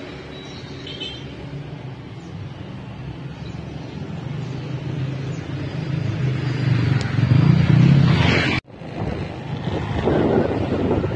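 A motorbike engine running and coming closer, growing louder until the sound cuts off suddenly about two-thirds of the way in. After the cut, wind buffets the microphone on a moving bicycle.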